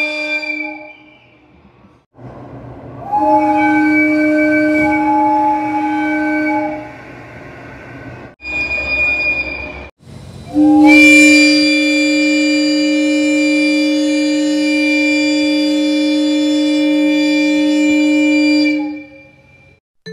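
Air horn of the West Express Ginga, a rebuilt 117-series electric train, sounding in several separate steady blasts: the end of one blast in the first second, a blast of about three and a half seconds, a short higher-toned horn sound, and a long blast of about eight seconds.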